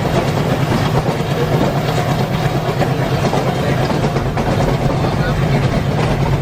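ALCO WDG-3A diesel locomotive's 16-cylinder engine chugging hard under load with a steady, throbbing beat, heard from the train behind it together with the rumble of the coach wheels on the rails.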